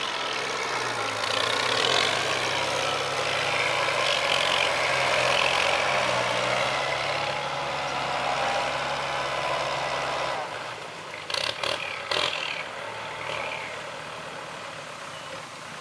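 Heavy diesel machinery engine running steadily with a whine, then easing off about two-thirds of the way through. A few sharp knocks or clanks follow shortly after.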